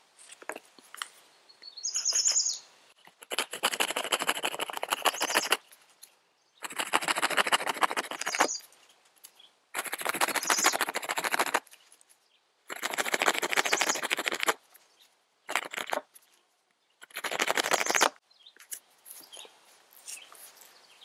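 Tracker knife's built-in notch maker rasping back and forth across a green-wood stick to cut a notch, in six bouts of one to two seconds with short pauses as the stick is turned, played at double speed. A bird chirps once about two seconds in.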